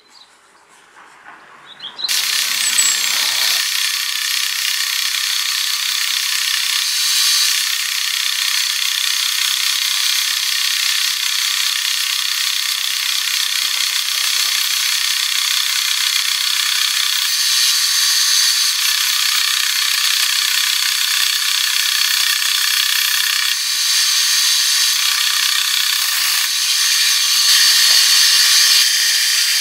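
Bench linisher (belt sander) running with a birch kuksa cup pressed to the belt: a steady, high hiss of abrasive on wood that starts suddenly about two seconds in.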